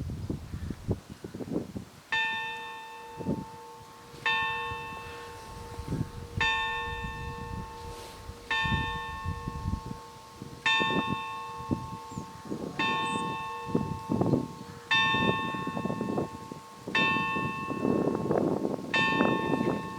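Fyvie Parish Church bell ringing for noon: a single bell struck about once every two seconds, starting about two seconds in, each stroke ringing on into the next.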